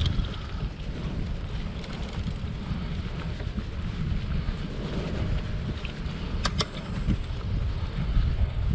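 Wind buffeting the microphone of a camera on a moving bicycle: a steady, gusting low rumble. Two sharp clicks come close together about two-thirds of the way through.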